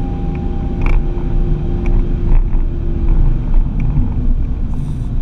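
Ford Focus ST driven at speed, heard from inside the cabin: its engine running under load over a heavy rumble of road and tyre noise. A steady engine tone holds, then drops away about two to three seconds in.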